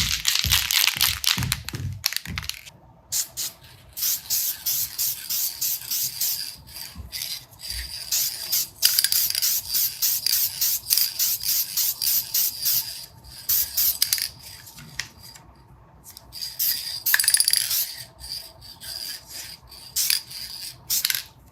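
Sealer being applied to polished zinc-silver metal prop parts: a long run of short, hissing strokes, one after another, with brief pauses.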